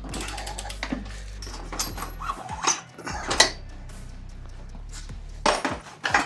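Metal clinks, knocks and scrapes of steel tire spoons against a motorcycle wheel rim while the tire bead is levered off on a manual tire changer, with low background music underneath.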